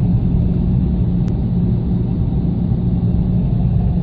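Steady low rumble of a car's engine and tyre noise, heard from inside the cabin while driving along a wet highway.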